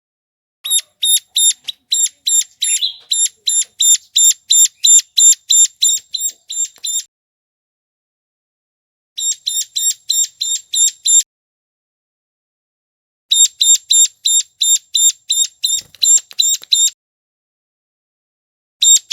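Ciblek gunung (a prinia) calling: a rapid run of sharp, high, identical notes at about four a second, in three bursts separated by a second or two of silence.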